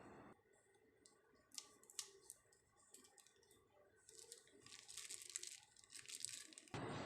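Faint crackling and crinkling handling sounds: a few sharp crackles about one and a half to two seconds in, then a longer run of them in the second half.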